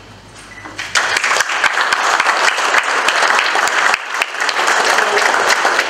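Audience applauding, with the clapping breaking out about a second in and holding steady to the end.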